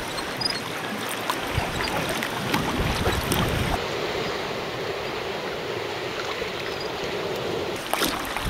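Sea water sloshing and splashing around a kayak, with many small splashes and drips.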